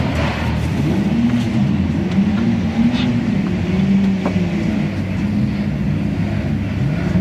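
Renault Clio V6 Cup race car engines running at low speed, the revs rising and falling in slow swells as a car creeps along the pit lane.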